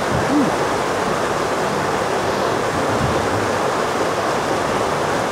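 Steady rush of a waterfall and river running over rocks.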